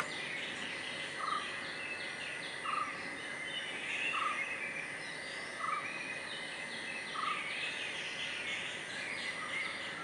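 Birds chirping: a short clear note repeating about every one and a half seconds over many faint, quick chirps, with a steady high-pitched hum underneath.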